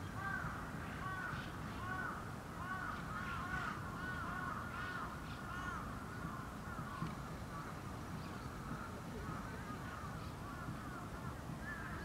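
A flock of birds calling at once: a dense, continuous chatter of short rising-and-falling call notes, over a steady low rumble.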